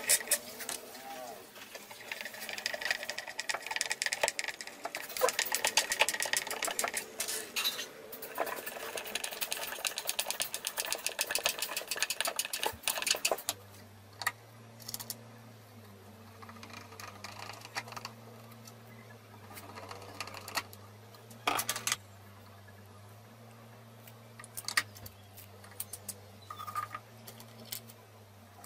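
Hand screwdriver driving a screw into plywood, with rapid clicking. About halfway through this gives way to a steady low hum and scattered knocks of wooden blocks being set down and handled on a plywood tabletop.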